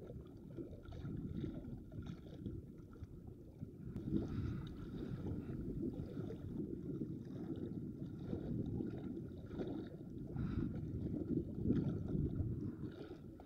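Small sea waves sloshing against the rocks of a seawall, with wind buffeting the microphone; the sound rises and falls unevenly.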